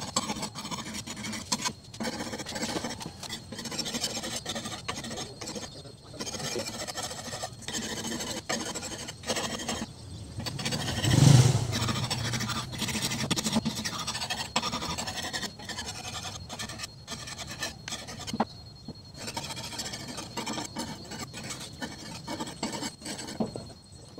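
Hand saw rasping through wood in uneven strokes, with a brief louder, low-pitched swell about eleven seconds in.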